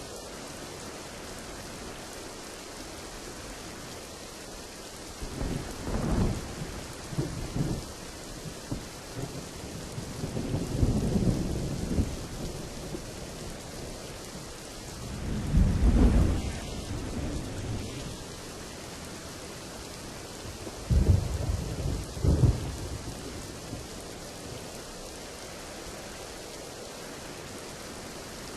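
Steady heavy rain with rolls of thunder: several low rumbles swell up over the rain hiss, the loudest about halfway through, and a double crack-and-rumble a few seconds later.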